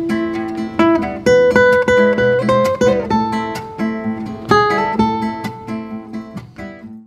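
Background music: an acoustic guitar plucking a melody, growing fainter toward the end and stopping abruptly.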